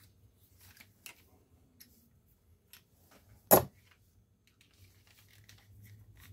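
Faint scattered clicks and taps of a screwdriver and small parts while a heat gun's plastic housing is taken apart by hand, with one sharp loud knock about three and a half seconds in.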